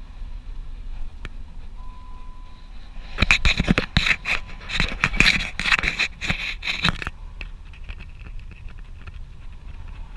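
Loud scraping and rustling for about four seconds, starting about three seconds in, as a dog wearing a body-mounted camera moves about on a car's floor mat and the mount rubs. A low steady rumble runs underneath.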